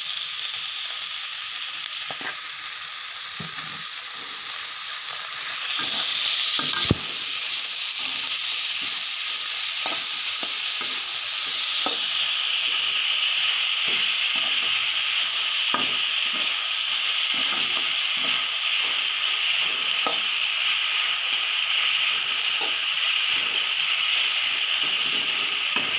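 Sliced onions sizzling in hot oil in a kadai, stirred with a perforated metal spatula that scrapes and ticks against the pan, with one sharp knock about seven seconds in.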